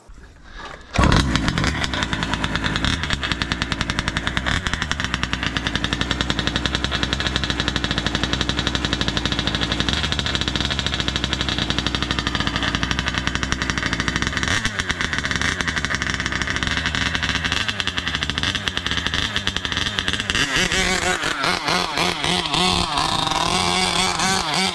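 Taylor 50cc two-stroke engine of a 1/5-scale RC buggy starting about a second in and idling steadily at around 3,700 rpm. Near the end it revs up and down repeatedly as the buggy drives off.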